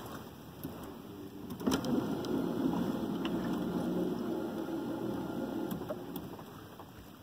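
Fishing reel whirring as a hooked fish is played. It starts suddenly about two seconds in and fades out near the end, with a few sharp clicks around it.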